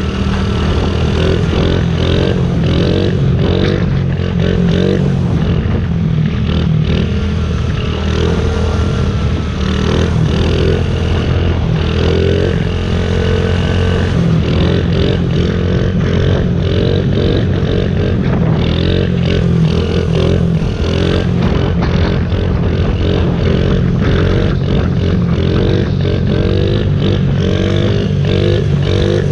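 Honda CRF50 pit bike's small single-cylinder four-stroke engine running under throttle as the bike is ridden, its pitch rising and falling over and over with throttle and gear changes.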